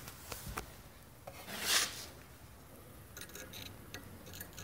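Light clicks and rubbing from handling a homemade propane forge burner's metal fittings, with one short hiss-like burst near the middle.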